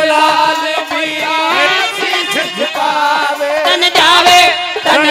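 Live Haryanvi folk music: a wavering melody over steady held notes, with drum strokes keeping the beat.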